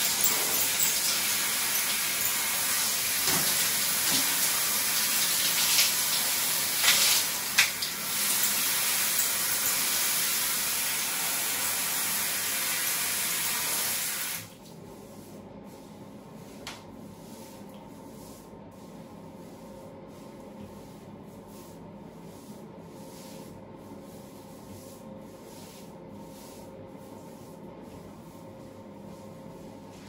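Water spraying from a hand-held shower head onto wet hair, a steady hiss that cuts off abruptly about halfway through, leaving only a much quieter background.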